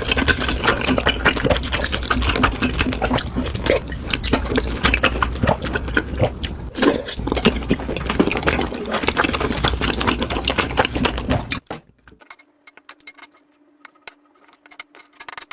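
Close-miked eating sounds: wet chewing and slurping, with a dense run of mouth clicks and smacks. About twelve seconds in it drops suddenly to a few faint clicks.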